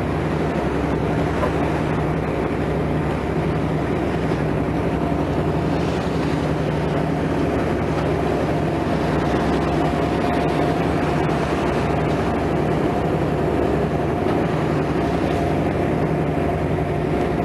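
Boat engines running with a steady low drone and a fixed hum over a rushing wash of sea and wind, heard on the deck of a vessel under way.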